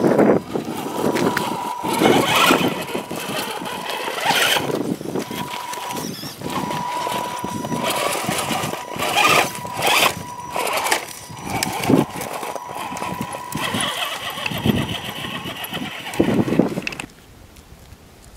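Axial SCX10 RC rock crawler's electric motor and geartrain whining as it is driven in surges over dirt, twigs and rock, with crunching and scrabbling from the tyres. The sound cuts off suddenly near the end.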